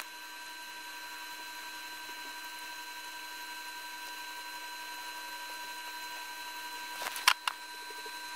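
Laptop cooling fans running steadily under full processor load from a Cinebench render, a steady hiss with a few faint, steady whining tones. Three sharp clicks come about seven seconds in.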